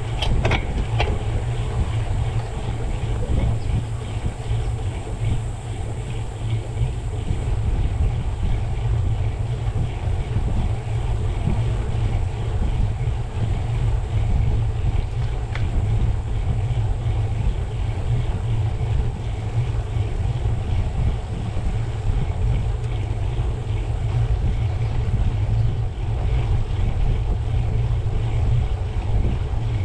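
Steady wind rush buffeting the microphone of a cyclist riding in a group ride, heavy and deep, with road noise underneath. A few light clicks come near the start and again about halfway through.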